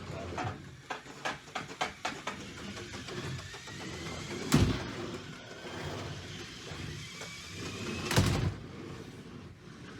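Lego combat robots clashing: a quick run of plastic clicks and clatters at the start, a faint motor whine that rises in pitch, and two louder knocks, one about halfway and one about eight seconds in.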